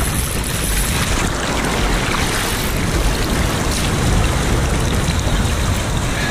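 Surf water sloshing and splashing around a person wading waist-deep, heard up close at water level: a steady rushing noise with no break.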